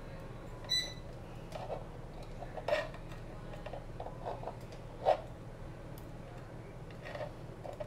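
Small clicks and taps of metal tweezers against a carbon-fibre micro drone frame as it is handled, half a dozen in all, the loudest about five seconds in. A short electronic beep sounds less than a second in, over a low steady hum.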